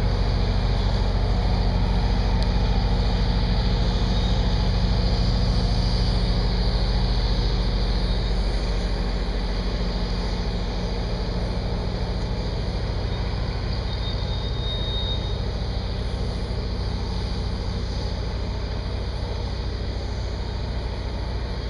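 Crack-sealing equipment running steadily: a low engine drone with an even high hiss over it, easing off slightly after about eight seconds.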